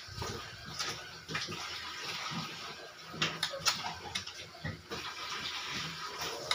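Wet, close-up eating sounds: lips sucking at fingers and food, chewing, and hands working through soupy noodles, with a few short clicks and smacks.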